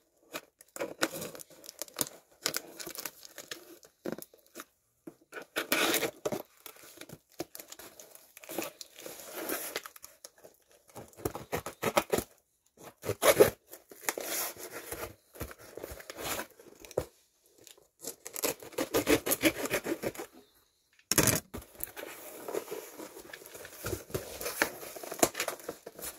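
Cardboard mailer box being torn and pried open by hand: irregular ripping, scraping and crinkling of cardboard and paper, in stop-start bursts.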